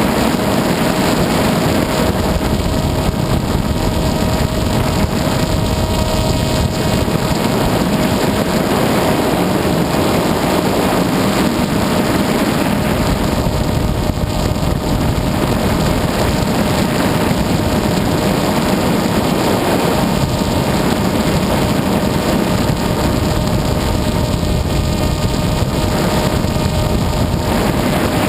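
An FPV aircraft's electric motor and propeller running steadily, a constant tone over rushing noise, as heard from the onboard camera in flight.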